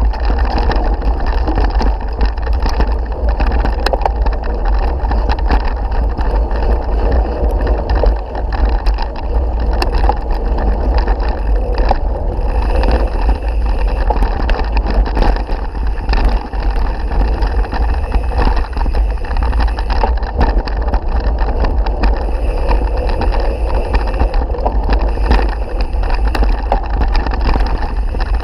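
Mountain bike ridden over a bumpy dirt and grass trail, heard from a camera mounted on the bike: heavy wind buffeting on the microphone with constant rattling and knocking from the bike and camera mount over the rough ground.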